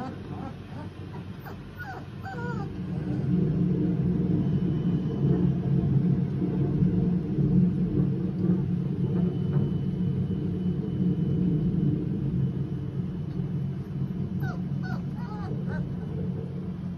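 A long roll of thunder from a storm, swelling a few seconds in, holding loud and then slowly fading. Puppies give short high whimpers and yips near the start and again near the end.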